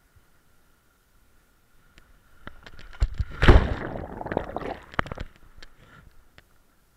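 Sea water splashing and gurgling around a camera as a swimmer moves through the surface, starting about two and a half seconds in. It is loudest around the middle, with several sharp knocks, then dies away.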